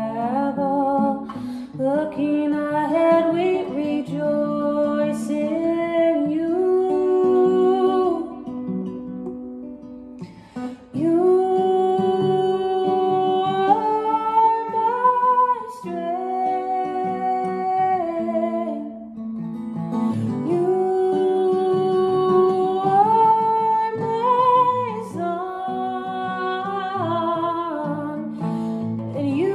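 A woman singing a worship song with long held notes while playing an acoustic guitar. The music drops low for a moment about ten seconds in, then comes back.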